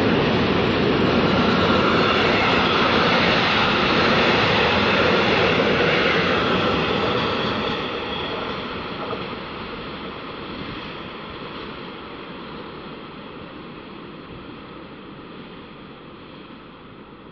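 Container freight train's loaded wagons rolling past on the rails, loud and steady, then fading from about seven seconds in as the end of the train draws away.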